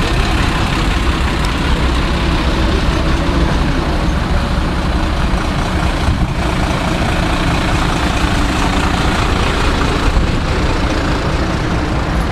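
Heavy diesel engines of fire engines running as they drive slowly past in a line, a steady rumble.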